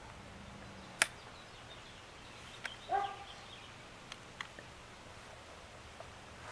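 Mostly quiet, with a sharp click about a second in and one short animal call, like a dog's bark, about three seconds in, followed by a few faint ticks.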